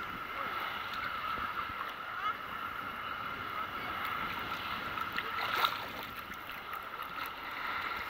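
Sea water sloshing and lapping against a camera held right at the water's surface, with one louder splash about five and a half seconds in.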